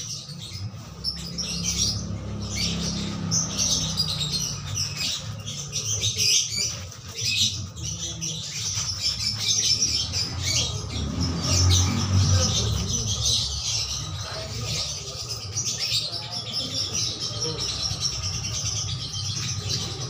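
Wet laundry being rubbed, squeezed and wrung by hand in a plastic tub of water, with birds chirping throughout.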